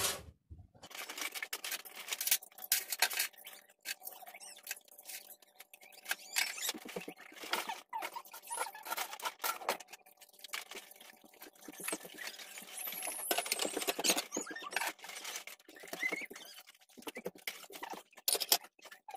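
Dishes and cutlery clinking and clattering irregularly as they are washed by hand: many small knocks and clicks, some in quick runs, none loud.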